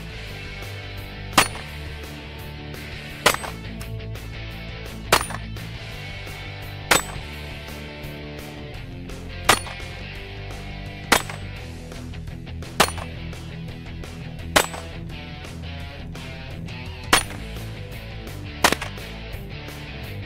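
Ten pistol shots fired one at a time, each a sharp crack standing well above background music, spaced about one and a half to two and a half seconds apart.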